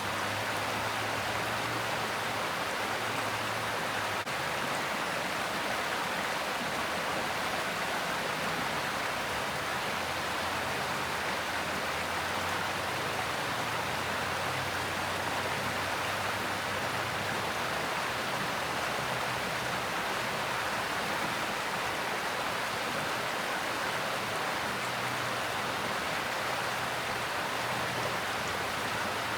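Mountain stream rushing and splashing over rocks, a steady even rush of water.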